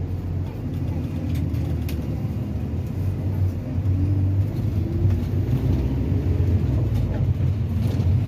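Steady low rumble of a road vehicle heard from inside it: engine and road noise while moving.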